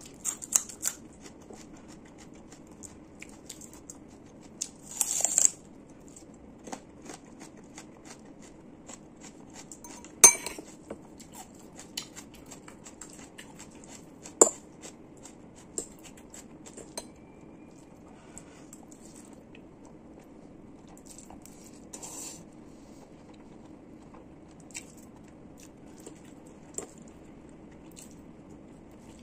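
Someone eating noodles: a metal fork and spoon clicking and scraping against a ceramic bowl in scattered sharp clicks, with chewing and a couple of longer slurps, about five seconds in and again past twenty seconds.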